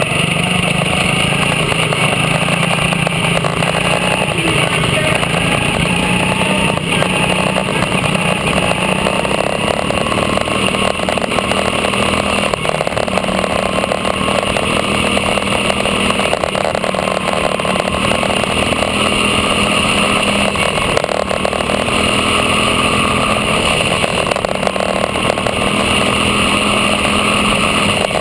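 Quarter midget race car's small single-cylinder engine running at racing speed, heard onboard: a steady, loud drone whose pitch rises and dips slightly through the turns, with other quarter midgets' engines running close by.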